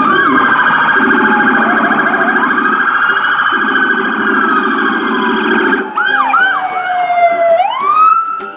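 Police car sirens sounding loudly, more than one at once. A fast warbling siren tone stops at about six seconds. Short chirping yelps follow, along with a slow wail that falls and then climbs again near the end.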